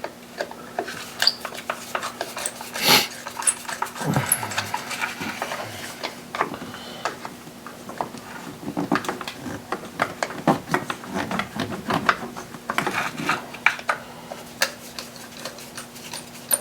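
Irregular clicks, knocks and light clatter of hand tools and metal and plastic parts being handled while the secondary air pump is worked loose, with a faint steady hum underneath.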